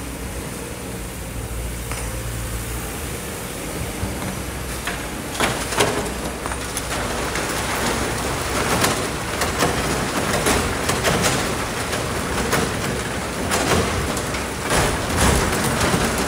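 Kobelco hydraulic excavator's diesel engine running as the machine swings, then from about five seconds in sand and stones pouring from its bucket into a steel dump-truck bed: a dense rushing hiss with scattered knocks of rocks.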